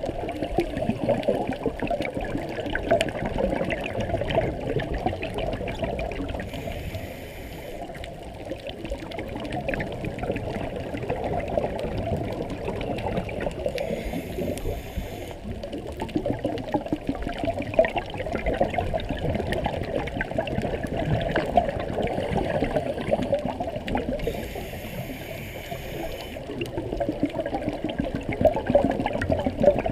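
Scuba regulator breathing heard underwater: a steady bubbling crackle of exhaled air, broken three times by a short hiss of inhalation.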